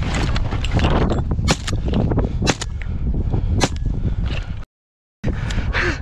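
Wind buffeting the microphone, with several sharp knocks. The sound cuts out completely for about half a second near the end.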